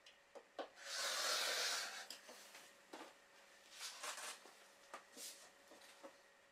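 A rotary cutter, an acrylic quilting ruler and fabric handled on a cutting mat. About a second in there is a loud scraping slide lasting about a second, followed by scattered light taps and fabric rustles.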